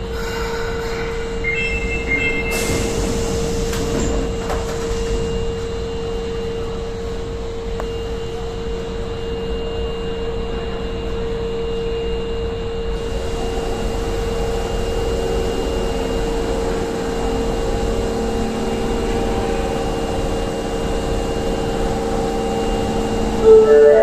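Osaka Metro 22 series subway train standing at the platform with a steady electrical hum, a short hiss of air around three seconds in. A platform melody starts right at the end.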